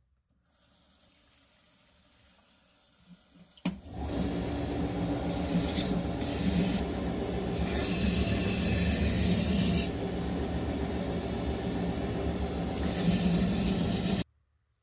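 Electric rotary whetstone running wet under tap water while the edge of a chipped deba knife is ground against the spinning stone, ground back to the chip to remove it. After a click a few seconds in, the motor and water noise comes up loud, with a harsh grinding hiss in several passes, and it cuts off suddenly near the end.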